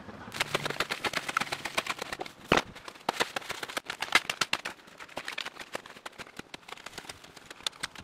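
Shovel digging into frozen sawdust and snow: a quick run of crunching, scraping strikes, the loudest about two and a half seconds in.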